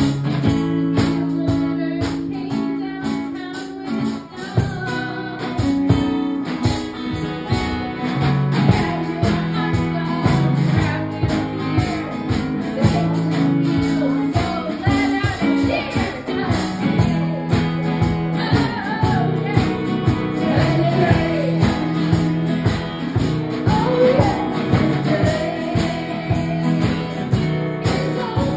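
Live music: strummed acoustic guitar, joined about five seconds in by a woman singing into a microphone over the guitar.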